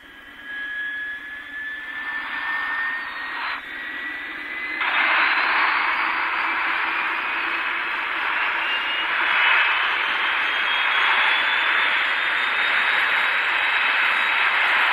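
Jet-engine-like whine and rushing roar: a high whine rises slowly in pitch over a wide rush that swells and jumps louder about five seconds in.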